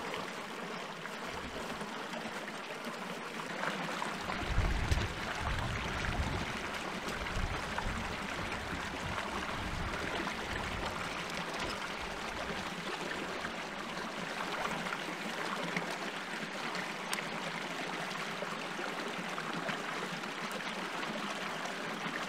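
Small moorland brook burbling steadily over rocks. A few low rumbling bumps come through between about four and eight seconds in.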